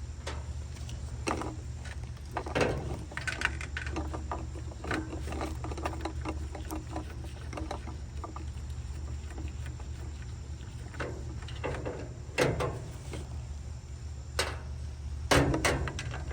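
Metal clicks and clinks of hand tools working the nuts and bolts on a Raypak pool heater's burner and heat exchanger housing, in scattered clusters over a steady low hum.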